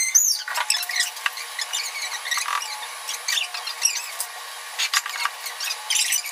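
Scattered small clicks, scrapes and brief squeaks of hands handling cans, lids and packets on a table.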